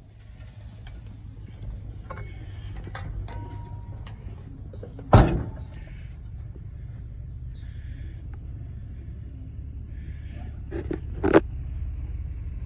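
A heavy truck cab door slams shut once, loud and sharp, about five seconds in, over a steady low rumble. A second, smaller knock comes near the end.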